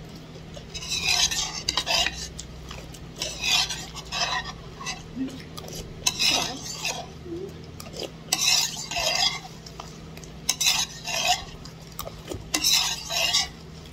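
A spoon stirring and scraping rice and egg in a plate or bowl, in short scrapes every second or two.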